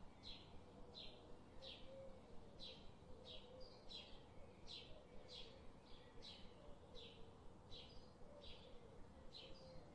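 Near silence, with faint short high chirps repeating about twice a second, like a small bird calling.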